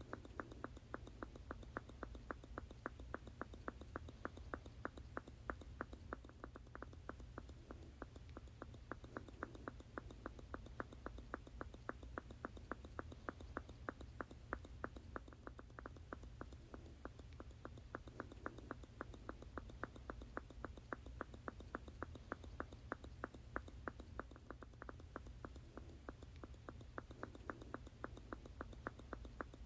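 Squeeze bottle squirting over and over in an even rhythm, about three to four short squirts a second.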